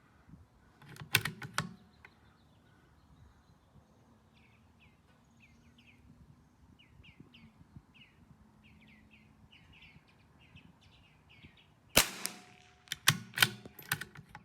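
A single shot from a CZ 457 AT-ONE .22 LR bolt-action rifle about 12 seconds in, a sharp crack with a short ringing tail, followed by a quick run of metallic clicks as the bolt is worked. A similar burst of clicks comes about a second in. Between them a small bird chirps, a string of short falling notes.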